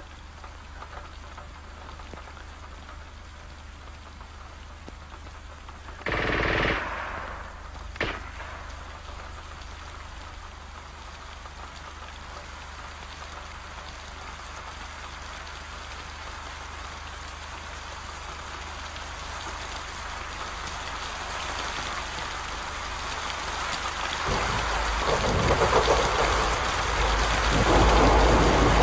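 Steady rain falling, growing heavier, with thunder rumbling low and loud over the last few seconds. A brief loud burst comes about six seconds in.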